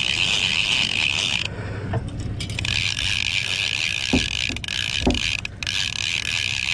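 Clicker of a conventional trolling reel buzzing steadily as line pays out, stopping for about a second near the start and then resuming, over the low rumble of the boat's Suzuki outboard at trolling speed.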